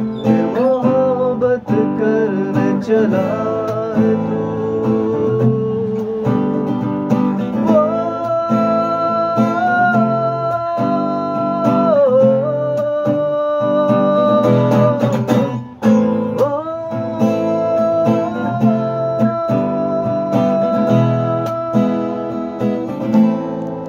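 Acoustic guitar strummed with a pick in a steady rhythm, under a man's wordless sung melody of long held notes that slide between pitches.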